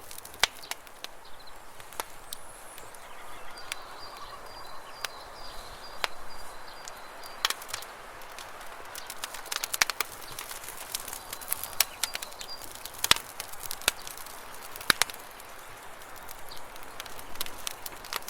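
Steady soaking rain, with irregular sharp drops pattering and dripping onto surfaces. A faint high, thin tone comes and goes for a few seconds near the start and again midway.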